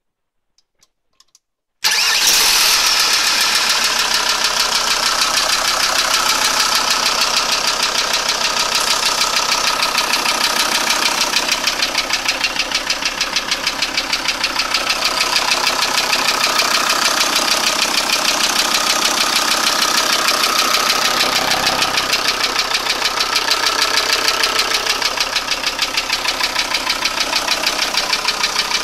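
VW T4 2.5 TDI (AXG) five-cylinder diesel engine starting suddenly about two seconds in, after a few faint clicks, then idling steadily with an even rattling clatter: the rattle that the owner is asking about.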